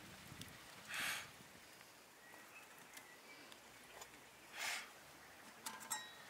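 A person blowing on the smouldering embers and ash of a wood fire to revive it: two short breathy puffs, about a second and about four and a half seconds in, over faint crackling from the embers.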